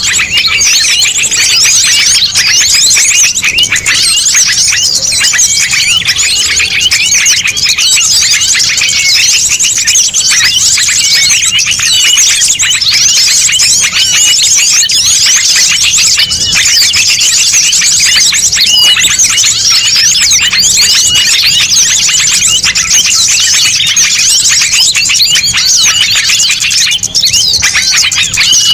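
Loud, dense chorus of many small songbirds chirping and twittering at once, a mixed-species bird-lure (pikat) recording. It is a continuous, busy tangle of rapid high chirps and short whistled notes.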